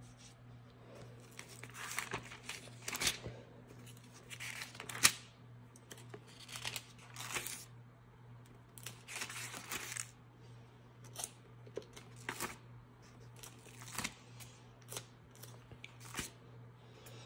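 Thin pages of a Thompson Chain Reference Bible turned one after another by hand, about a dozen paper rustles at uneven intervals, the sharpest one about five seconds in. A faint steady low hum runs underneath.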